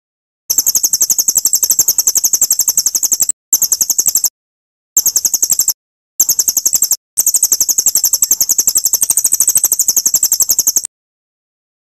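Recorded bird song used as a masteran for training white-rumped shamas: a very fast, high-pitched trill of about a dozen notes a second. It comes in five stretches that start and stop abruptly, with dead silence between them where the track is cut.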